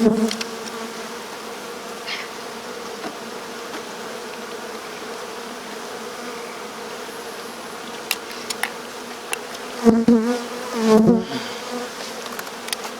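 A swarm of honeybees buzzing, a steady humming drone. The buzz swells loudly twice, about ten and eleven seconds in, its pitch wavering.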